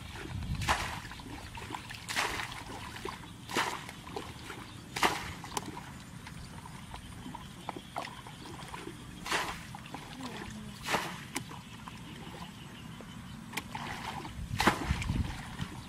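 Muddy ditch water being bailed with a bucket: sloshing as each bucketful is scooped, then a splash as it is thrown out, repeating every second or two with a longer gap near the middle.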